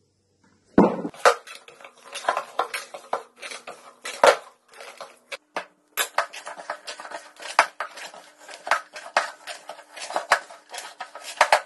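Hands mixing egg yolk into soft brioche dough in a glass mixing bowl, making a run of irregular clicks and knocks as the bowl shifts and rattles on the wooden board. A heavier thump comes about a second in.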